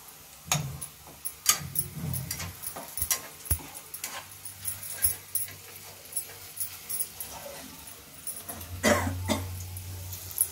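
Steel bowls, plates and utensils clinking and knocking as they are handled, with a short pitched sound about nine seconds in.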